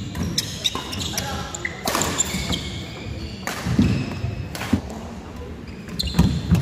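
Badminton doubles play in a large hall: sharp racket hits on the shuttlecock and shoes squeaking and thudding on a wooden court, mixed with players' voices, all echoing in the hall.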